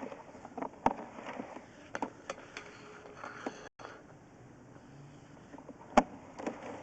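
Irregular clicks and knocks over a low hiss from a sewer inspection camera and its push cable moving through the line, with the loudest knocks about a second in and near the end.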